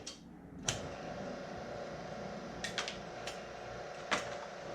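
Electric wire-stripping machine starting up about half a second in and running with a steady hum, with a few sharp clicks as wire is fed through it and a loud knock at the end.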